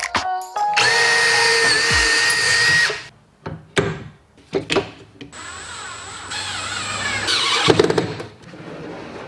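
Cordless drill running in two bursts of about two to three seconds each, with a steady whine, as it works in a maple drawer box. A few sharp wooden knocks fall between the bursts.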